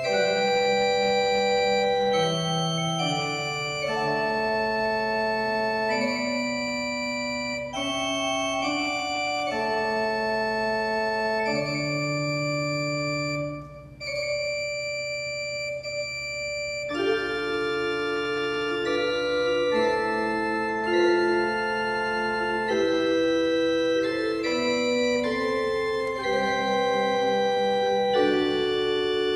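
Pipe organ playing slow, sustained chords that change every second or two. The sound breaks off briefly about halfway through, then comes back fuller, with more notes sounding together.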